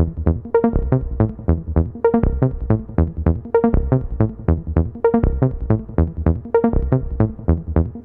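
Background music: a quick, steady run of short plucked notes, about four a second, over a low bass pulse.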